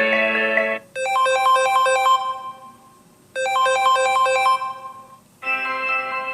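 Samsung Galaxy S20 stock ringtones. One tune ends about a second in, then a short chiming melodic phrase plays twice, each time fading out, and a new, fuller ringtone begins near the end.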